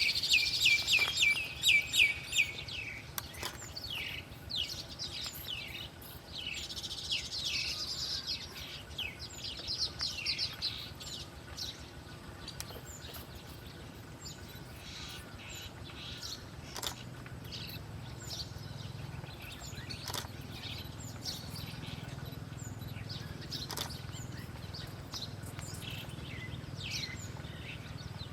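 Small birds chirping: rapid runs of short, quick-falling chirps, loudest in the first few seconds and again about a third of the way in. After that come sparser single calls over a faint low hum.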